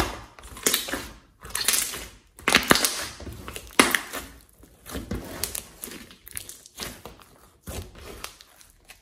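A large, thick slime being squeezed, folded and pressed by hand, making sticky crackles and pops. These come in bursts about a second apart and are loudest in the first few seconds.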